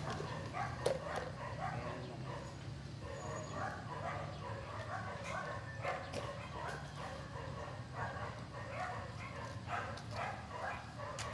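Short animal calls repeating several times a second, overlapping one another, over a steady low hum.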